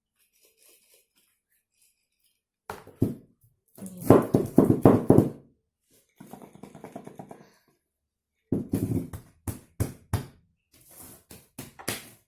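A lidded jar packed with pine cones and sugar being shaken in several bursts, the cones and sugar knocking and rattling inside as the sugar settles down among the cones.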